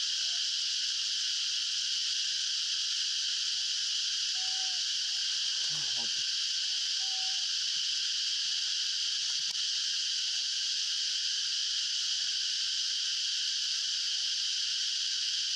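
Steady, shrill chorus of insects, with a few faint short chirps now and then.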